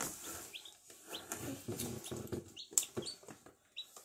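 Newly hatched chick peeping, about half a dozen short high chirps, over the rustle of the chick being handled and lifted from its box.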